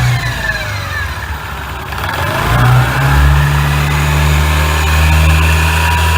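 Honda PCX125 (JF56) scooter's single-cylinder engine and belt drive easing off and then accelerating again. A thin whine falls with the slowing and rises with the speed-up, then holds steady. This is the abnormal noise from the drive side that shows while riding.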